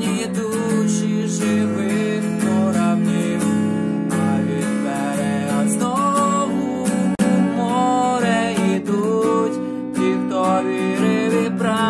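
Acoustic guitar strummed steadily in a continuous rhythm, with a man's singing voice over it.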